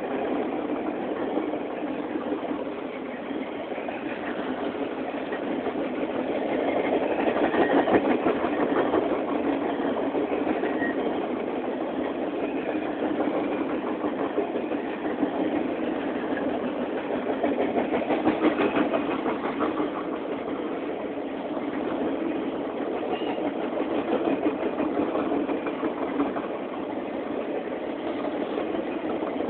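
Norfolk Southern Triple Crown RoadRailer freight train rolling past: a steady rolling rumble of wheels on rail that swells louder twice, about a quarter of the way in and again past the middle.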